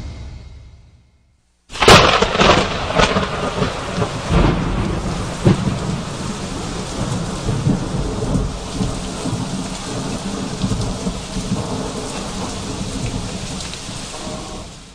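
Thunderstorm sound effect: a sudden loud thunderclap about two seconds in, then steady heavy rain with further rumbles of thunder, fading out near the end.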